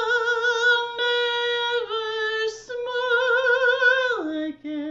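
A woman singing alone, with no accompaniment, in a slow ballad line of long held notes with vibrato. The melody steps up a little over halfway through, then falls to a low note near the end.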